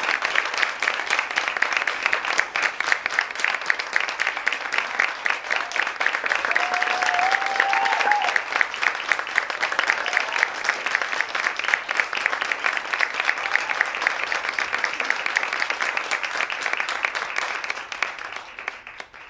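Theatre audience applauding steadily, with one drawn-out cheer from a single voice about seven to eight seconds in; the applause fades out near the end.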